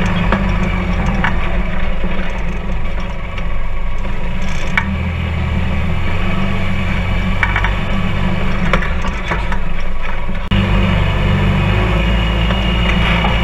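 Polaris RZR 4 side-by-side driving on a dirt trail, heard from inside the open cab: a steady low engine drone with scattered clicks and rattles. The engine note shifts about ten seconds in.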